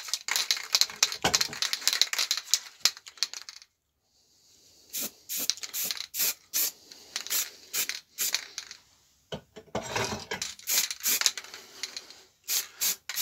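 Aerosol can of etch primer being shaken, its mixing ball rattling rapidly, then a pause and short hissing bursts of spray, applied as a light dusting.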